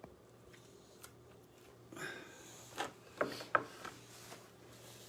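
Knife cutting a pepper on a cutting board: a handful of light knocks and scrapes between about two and four seconds in, over a faint steady hum.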